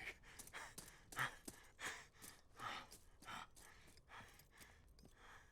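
A man's faint, ragged breathing: short gasps and sighs, roughly one or two a second.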